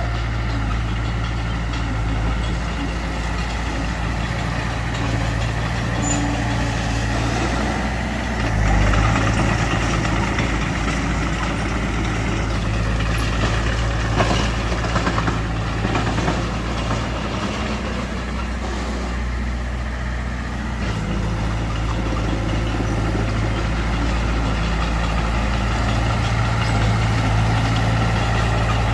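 Heavy diesel engine of earthmoving machinery (bulldozer and dump truck) running steadily under work, briefly louder about nine seconds in, with some clatter around the middle.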